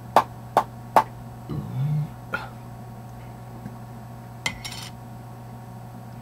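A can of Copenhagen dipping tobacco being packed: three sharp taps on the can about 0.4 s apart, then a brief low hum, another tap, and a click with a short scratchy rustle near the end.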